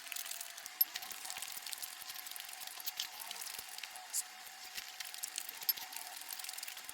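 A person chewing soft Vietnamese folk cakes close to the microphone: wet, squishy mouth sounds with many small clicks throughout.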